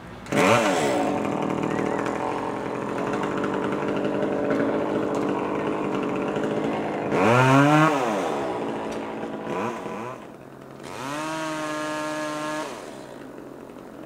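Two-stroke chainsaw running up in the tree, revved repeatedly: it speeds up sharply about half a second in, peaks loudest around the middle, holds a high steady rev for a second or two, then drops back to a low idle near the end.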